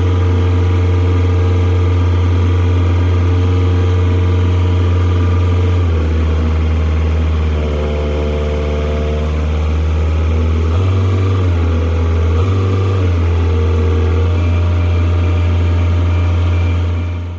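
A large engine running steadily under load, its pitch shifting down and up a few times as the machine works.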